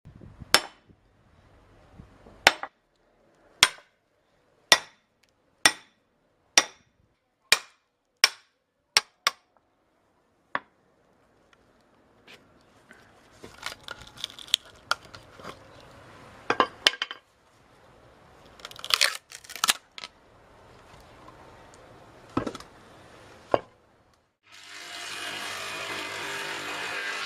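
Hammer blows on the back of an axe driven into a cherry log, sharp metal-on-metal strikes about once a second for some ten seconds. Then a spell of irregular knocks and cracks as the wood is split. About 24 seconds in, a jointer-planer starts running steadily as a cherry billet is fed across it.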